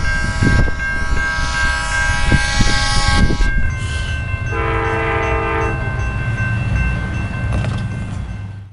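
Locomotive horn blowing a long blast that stops about three seconds in, then a second, shorter blast in the middle, at a railroad grade crossing. Under it are the low rumble and knocking of a passing train and the steady ringing of the crossing bell. The sound cuts off abruptly at the end.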